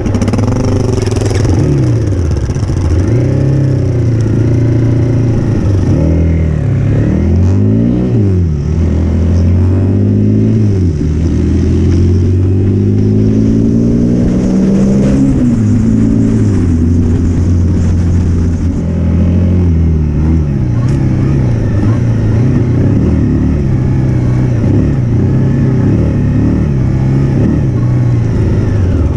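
Dual-sport motorcycle's single-cylinder engine heard from the rider's own bike, accelerating up through the gears, its pitch climbing and dropping at each shift. It holds a steady cruise in the middle, then eases off and picks up again in the last third.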